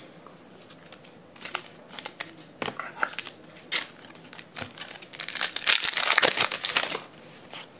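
Wrapper of a Panini Crown Royale football card pack being handled with scattered crinkles and clicks, then torn open, with a loud stretch of crinkling and tearing from about five to seven seconds in.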